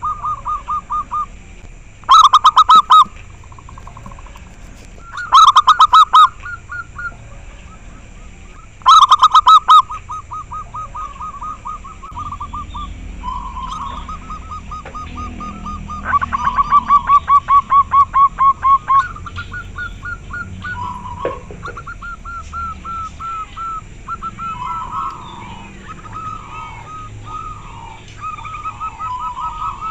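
Zebra doves (perkutut) cooing. Four loud phrases of rapid staccato cooing come in the first ten seconds, then softer trilled coo phrases from several doves overlap and answer one another.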